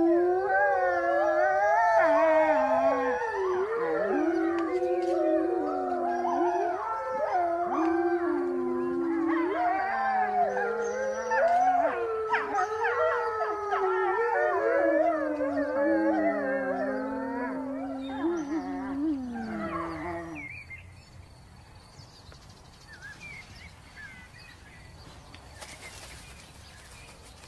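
A pack of grey wolves howling in chorus, several voices overlapping and gliding up and down in pitch. The chorus dies away about twenty seconds in, leaving faint background.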